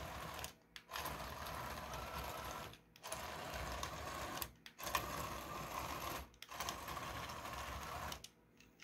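A small TT gear motor whirs as it drives a 3D-printed toy bulldozer's plastic tracks. It runs in five spurts of one and a half to two seconds with short stops between, and stops near the end.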